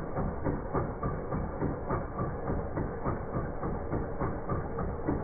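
Four-cylinder 1.9 TDI AFN turbodiesel engine running with a rhythmic clatter that pulses about three times a second. It is shown for its vibration problem.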